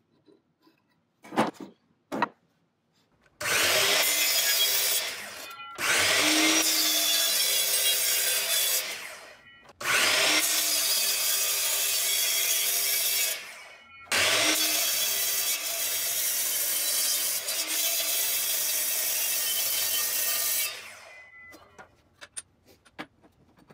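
Bosch GCM12SD 12-inch sliding miter saw cutting aluminum bar stock: loud, harsh cutting noise in four stretches, the last and longest, then fading out as the blade winds down. A few faint clicks come before the first cut.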